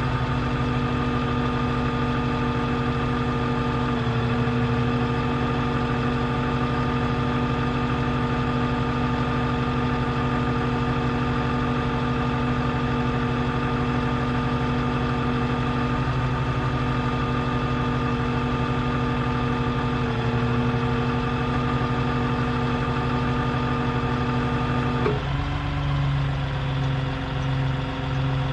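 Engine idling steadily. About 25 seconds in, its note shifts slightly and a regular pulsing sets in.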